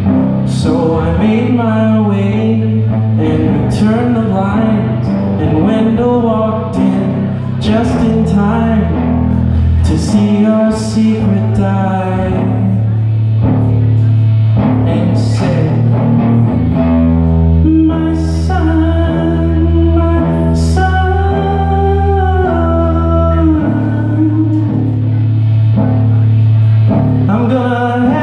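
Live song on electric guitar with voice, in an instrumental passage without lyrics: picked melodic lines at first, then long held chords over a steady low bass for several seconds past the middle.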